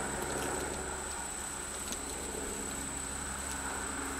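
Steady low hum with a thin, high-pitched whine above it and a few faint ticks.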